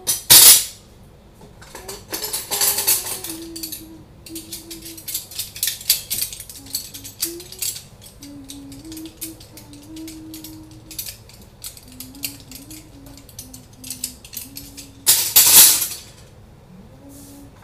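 Dishes and cutlery clinking and rattling as dishes are handled and dried, while a woman hums a tune. Two loud swishes, each about a second long, come just after the start and near the end.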